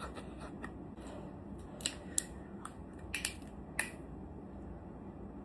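Close-up crunching of jellyfish head being chewed: about five sharp, crisp crunches between about two and four seconds in, with fainter ticks before them.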